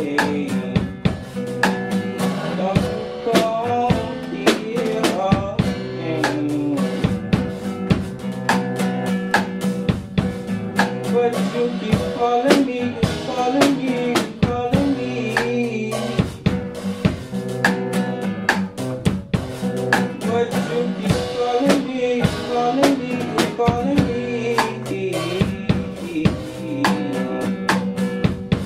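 Instrumental passage of a song played live on a nylon-string acoustic guitar and a Gretsch drum kit: guitar chords over a steady beat of kick drum, snare and cymbals.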